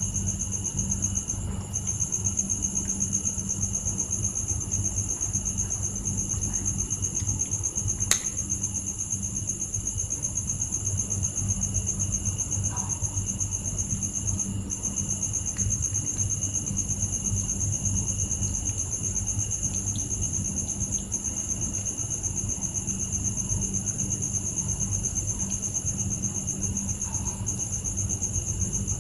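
Crickets chirping in a steady, unbroken high trill, with a single sharp click about eight seconds in.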